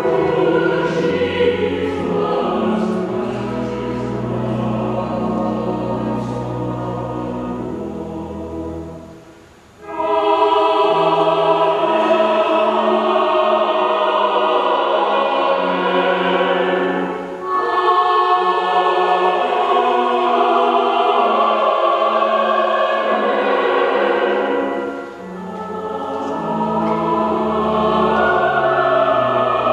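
Church choir singing the offertory anthem in sustained phrases. About a third of the way through, the singing fades to a brief pause, and the next phrase comes in loudly.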